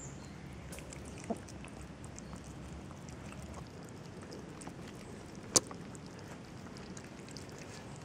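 Steady low outdoor background noise with a few faint ticks, a light click about a second in and one sharp click about five and a half seconds in.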